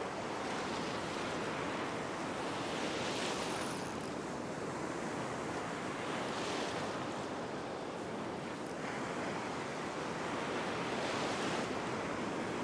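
Ocean surf breaking and washing through the shallows: a steady rush of white water that swells every few seconds as each wave surges in.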